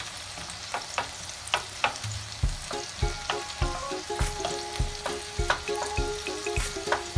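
Sliced onions sizzling as they caramelize in a square nonstick pan, with a wooden spatula stirring and clicking against the pan. A light tune with a steady beat comes in about two and a half seconds in.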